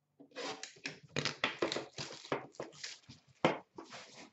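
Hands handling a metal Upper Deck hockey card tin: a quick run of clicks, taps and rustling scrapes as it is lifted and worked at the lid.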